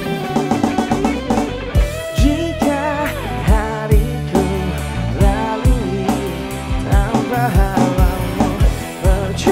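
Live band playing a song: electric guitar, bass guitar and drums with a regular beat, and a male lead vocalist singing from about two seconds in.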